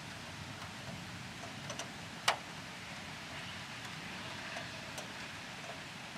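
Steady rain with scattered sharp drips, one louder tap a little over two seconds in.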